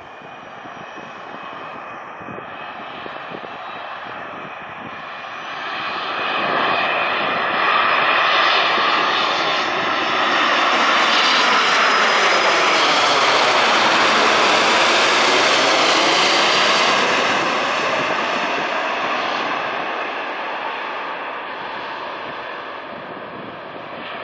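Boeing 787 Dreamliner's twin turbofan jet engines on landing approach, passing low overhead with gear down. The jet noise swells over several seconds, is loudest in the middle as the airliner goes over, and its tone sweeps before it fades as the plane moves away.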